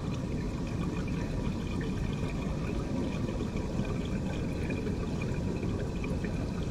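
Steady running of water in a swimming pool, an even rushing noise that does not change.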